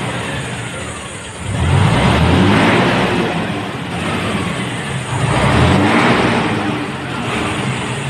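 A diesel vehicle engine revving up and easing back off in repeated cycles, its pitch and loudness rising about every three and a half seconds.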